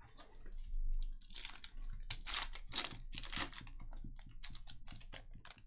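Trading cards and their packaging being handled at close range: a run of irregular crinkling and crackling, densest in the middle, stopping near the end.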